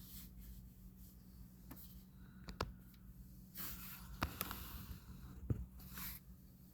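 Faint microphone handling noise: a few sharp clicks and brief scraping rustles over a low steady hum.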